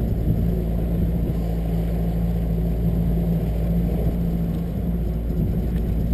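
Small fishing boat's outboard motor running steadily at constant pitch under way, with a low rumble of wind and water underneath.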